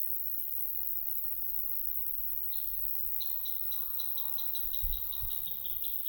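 A small bird calling a fast, even series of high repeated notes, about six a second, starting about halfway through. Under it, steady low wind rumble on the microphone with two brief buffets near the end.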